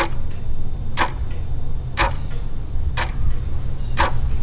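Clock-like ticking, one sharp tick about every second with a fainter tock just after each, over a steady low drone, as in a cinematic intro soundtrack.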